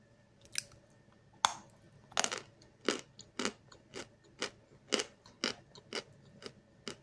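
A lump of Snezhok chalk being bitten and chewed close to the microphone. A loud crack comes about a second and a half in, then crisp crunches at about two a second.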